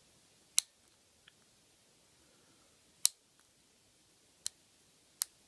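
Lock pick working the serrated pins of a brass ASL40 five-pin padlock: four sharp, separate clicks spread over a few seconds, the last two close together near the end, as pins set under tension.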